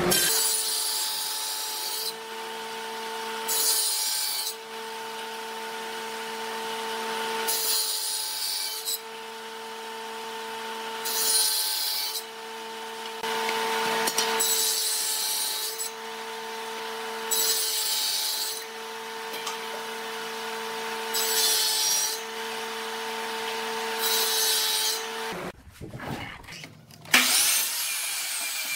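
Table saw running with a steady whine, cutting hardwood pieces about nine times, each pass a short burst of high cutting noise a couple of seconds long. The saw stops about 25 seconds in, and near the end a miter saw starts up with a loud onset.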